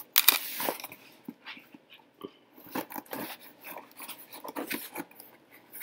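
Clear packing tape being slit and torn off a cardboard box, a loud rip in the first second, followed by scattered cardboard rustles, scrapes and light knocks as the box is handled.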